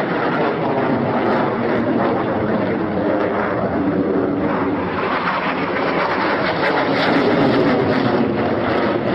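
Jet fighter in flight overhead: a steady, loud wash of jet engine noise.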